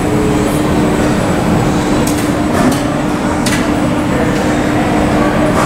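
Steady rumble of an Airbus A320-family airliner and its tow tug on the apron, with a constant hum and a few faint clicks.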